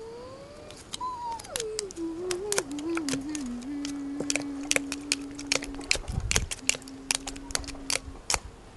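Small splashes and sharp clicks as hands and plastic forks move through water in a clear plastic tub, the ticks coming irregularly throughout. Over them, a single hummed tone rises, then falls with a wobble, then is held steady twice near the middle and end.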